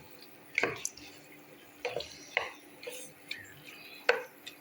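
A cooking utensil knocking and clinking against a pot, about six short separate strikes with a brief ring after each, over a faint steady hum.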